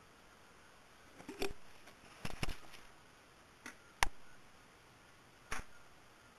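Handling noise on a wooden desk: about half a dozen light knocks and clicks as things are moved and set down, the sharpest about four seconds in.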